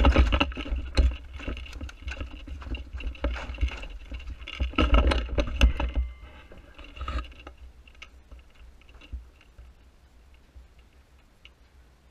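Rustling, scraping and knocking of an airsoft rifle with a mounted action camera and the player's gear as he pushes through brush, with heavy low rumble of handling on the camera microphone. It quietens after about six seconds, leaving scattered small ticks.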